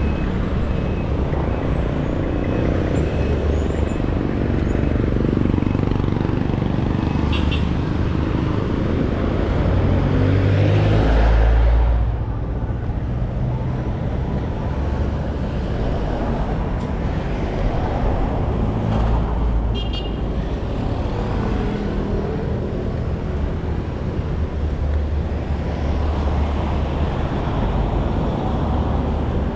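Street traffic going by, a steady rumble of passing vehicles that swells as one goes by close about ten seconds in, then drops suddenly. Two short high beeps sound, one a few seconds in and one near twenty seconds.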